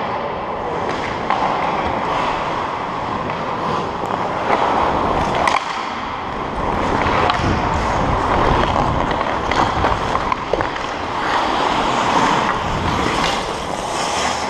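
Hockey skate blades scraping and carving on rink ice, heard up close from a helmet-mounted camera, with a few sharp clacks of stick on puck.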